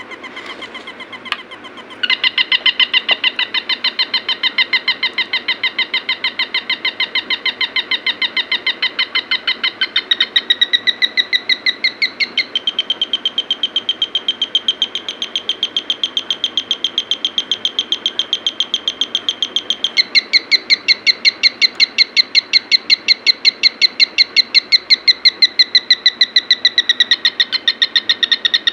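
Electronic bird-sound generator circuit producing synthetic bird chirps: rapid, evenly repeated high chirps at about four a second. A click comes a second or so in, the chirping gets louder about two seconds in, and it switches to a different call pattern several times.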